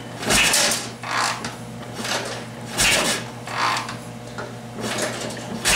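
Triumph 750 parallel-twin engine kicked over by the kick-starter with both spark plugs out and the throttle wide open, not firing: a run of rushing, whooshing strokes, the heaviest about every two and a half seconds with a low thump. It is being cranked for a compression test on the left cylinder, which reads only about 60 psi, far below the 130 to 140 this motor should make.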